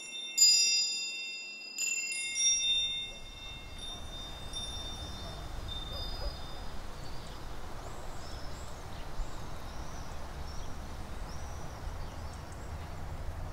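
Wind chimes struck a few times, clear high tones that ring and fade over the first three seconds. Then steady outdoor ambience with a low rumble and faint bird chirps.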